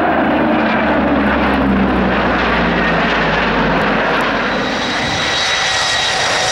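Steady deep drone of a Lockheed Super Constellation's four radial piston engines flying past with a formation of jet fighters. About five seconds in it gives way to the high steady whine of a KDC-10 tanker's turbofan engines making a low pass.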